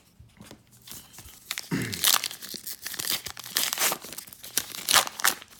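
A baseball card pack wrapper torn open and crinkled: quiet at first, then dense crackling and crinkling for the last few seconds.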